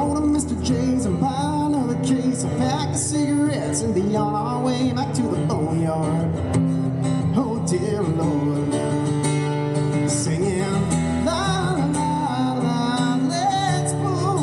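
Live country music: a male singer accompanying himself on acoustic guitar, played through a microphone and PA speaker.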